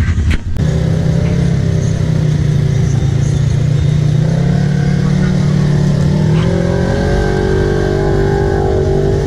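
Side-by-side UTV engine running hard at fairly steady high revs as the machine ploughs through deep water.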